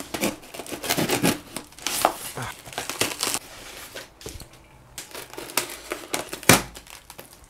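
Packing tape and plastic wrapping on a parcel being slit with a folding knife and torn open, with irregular crinkling and ripping; then a knife cutting packing tape on a styrofoam box. A single sharp knock about six and a half seconds in.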